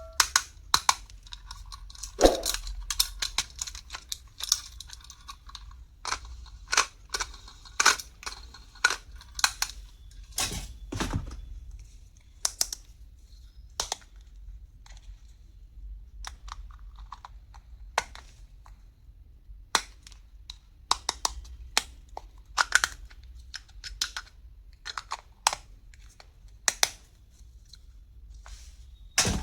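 Stationery items being handled and unboxed: irregular clicks, taps and knocks of small plastic parts and cases, with light rustling between them.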